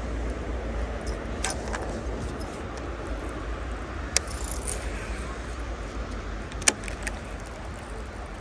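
Steady outdoor background noise with a low rumble, broken by a few sharp clicks; the loudest comes about six and a half seconds in.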